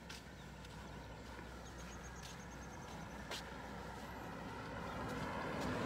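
Outdoor roadside background with a vehicle approaching, growing louder toward the end, and a few sharp clicks along the way.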